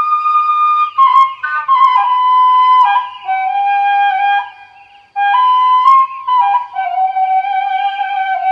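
Background music: a solo flute melody of held notes stepping gently downward, breaking off briefly about five seconds in and then resuming.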